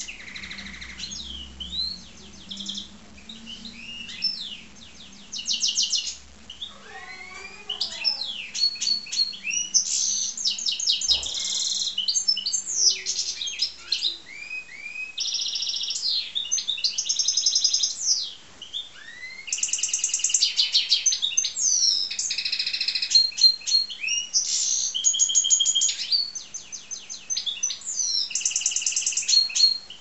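Goldfinch × canary hybrid (a 'mule') singing a long, varied song of rapid trills, quickly repeated notes and rising whistles, broken by a few short pauses.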